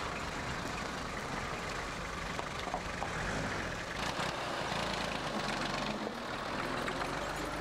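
Heavy vehicle engine running on a street, with a stronger low rumble for a couple of seconds around the middle as it passes or pulls away.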